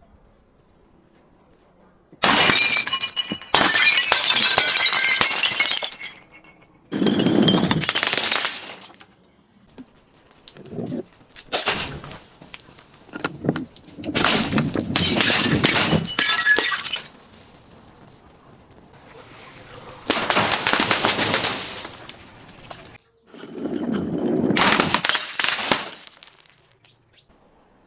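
Glass being crushed and shattering: several bouts of dense crunching and cracking, each lasting one to three seconds, separated by short pauses.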